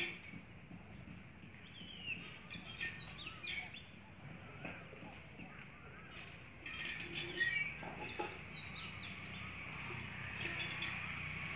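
Birds calling and chirping outdoors: many short chirps and quick gliding whistles come one after another, over a low steady background noise that grows louder near the end.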